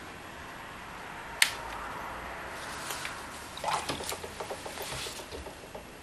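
One sharp click, then a quick run of light clicks and taps from a watercolour brush worked against the paint palette.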